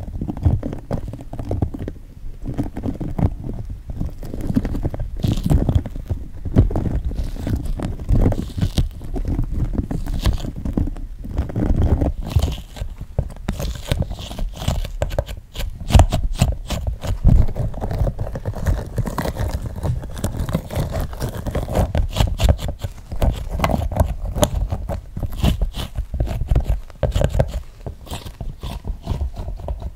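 Toy dinosaur figures handled close to the microphone: an irregular run of scrapes, rubbing and small clicking taps.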